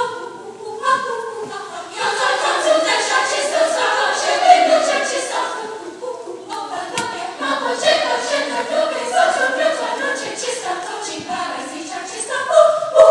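Girls' treble choir singing in several parts, with one sharp click or clap about seven seconds in. Near the end the choir swells into a loud, held chord.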